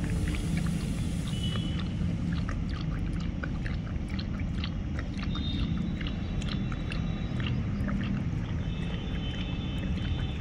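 German shepherd lapping and chewing milk-soaked food from a stainless-steel bowl, a run of many short, irregular clicks, over a steady low rumble.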